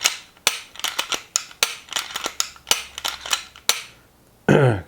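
Sharp metal-on-polymer clicks and clacks of a Glock 19 pistol's slide being fitted back onto the frame and worked, a rapid irregular run of them for about three and a half seconds. A man's voice starts near the end.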